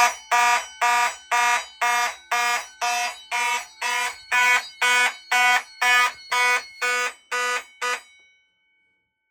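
Fire alarm horn sounding in even pulses, about two and a half a second, set off by the smoke detector under test. The pulses stop about eight seconds in, leaving a brief faint ring.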